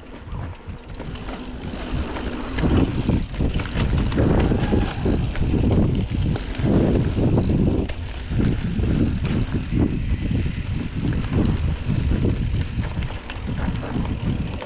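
Mountain bike descending a dirt trail at speed: wind rushing over the action camera's microphone and tyres rumbling on the dirt, with rattles and knocks from the bike over bumps. It builds over the first couple of seconds as the bike picks up speed, then stays loud.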